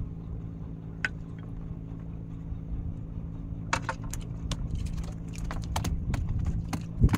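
A boat engine running steadily with an even hum. From a little over three seconds in, a quick, irregular run of sharp clicks and rattles, ending with a louder knock near the end.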